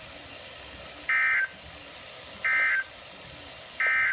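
NOAA Weather Radio EAS end-of-message data bursts: three short, identical bursts of warbling digital tones, about a second and a half apart, over a steady background hiss. They mark the end of the severe thunderstorm watch broadcast.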